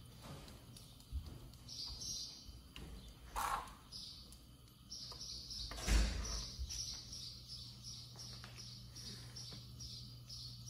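Rapid, evenly repeated high-pitched bird-like chirping, starting about two seconds in, over a steady low hum, with a short thump about six seconds in.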